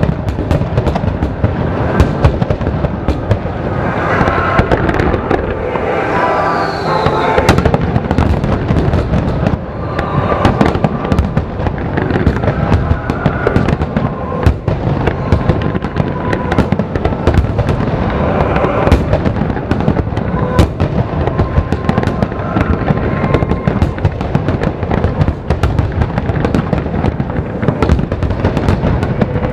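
A fireworks display: aerial shells bursting in rapid succession, a continuous barrage of booms and sharp cracks with no let-up.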